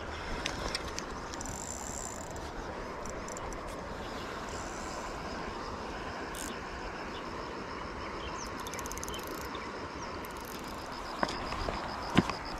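Steady rushing of a river flowing over rapids and shallows. Near the end, a few sharp knocks of cobblestones being moved.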